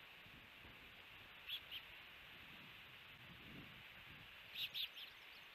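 Osprey giving short high chirps at the nest: two about a second and a half in, then three more close together near the end, over a steady faint hiss.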